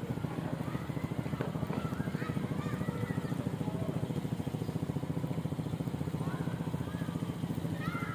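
Small ATV engine running steadily at a constant low speed, a fast even put-put with no revving.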